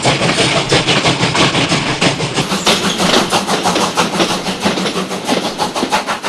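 Steam locomotive running, its exhaust chuffing in a fast, even rhythm of many beats a second.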